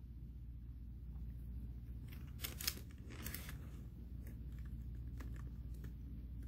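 A few faint plastic clicks as a Tomix N-scale 485 series model train car is set onto the track and pushed along by hand, the loudest about two and a half seconds in, over a steady low hum.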